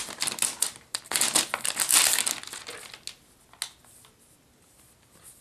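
Clear plastic protective sleeve crinkling as a tablet is handled and drawn out of it, in bursts over the first three seconds. Then it goes quiet apart from a single short click.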